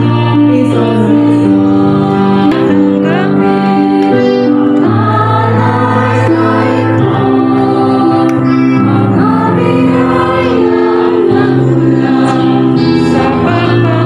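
Choir singing a hymn together over sustained instrumental accompaniment with long held bass notes.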